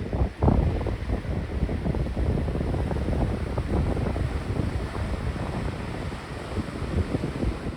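Sea waves washing on the shore, with wind gusting on the microphone in a steady low rumble.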